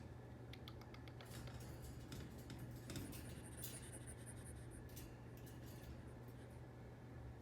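Faint small scratching and clicking of a pet squirrel moving about, over a steady low hum, with a short high-pitched trill about three and a half seconds in.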